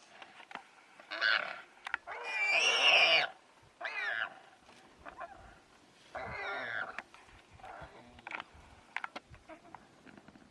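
Warthog squealing in distress while held in a lioness's jaws, in about five high-pitched cries, the longest and loudest about two to three seconds in.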